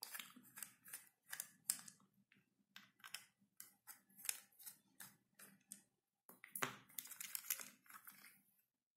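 Faint, irregular little clicks and scrapes of a small screwdriver turning out the screws in the plastic base of a Bachmann OO gauge locomotive, with the plastic body being handled. There is a denser run of scrapes near the end.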